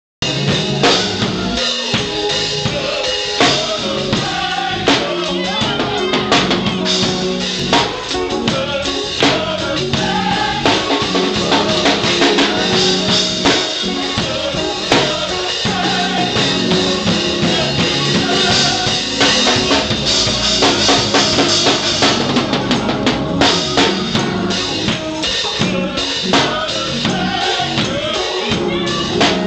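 Church choir singing a gospel song over a drum kit with steady bass drum and snare hits.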